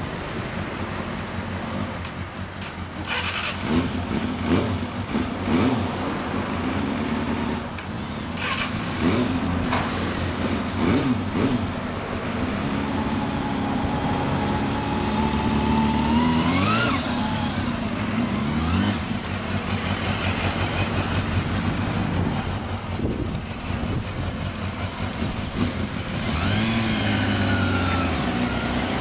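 Two 250 cc inline-four sport bikes, a Kawasaki ZXR250 and a Honda CBR250RR on Daishin DIC aftermarket mufflers, idle with short throttle blips. One engine revs up and drops back about halfway through, and near the end they pull away, engine pitch rising sharply.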